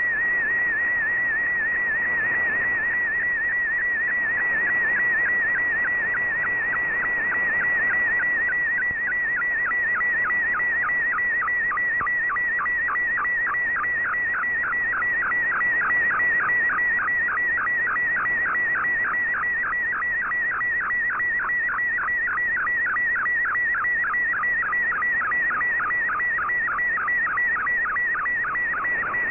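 Shortwave MFSK picture transmission decoded by Fldigi: a steady tone near 2 kHz, broken by a fast, even run of short dips in pitch, one per image line, over a hiss of band noise. From about nine seconds in, the dips plunge deeper as darker parts of the picture come through.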